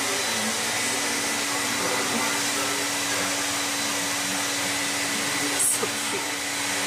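Steady rushing noise of a running motor-driven appliance, with a steady low hum under it and a brief sharp scrape a little over five seconds in.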